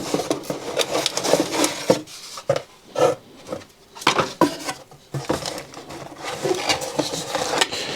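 Cardboard packaging rustling, scraping and knocking as a power supply is worked out of a tight-fitting box: irregular clicks and rubs, quieter for a couple of seconds in the middle.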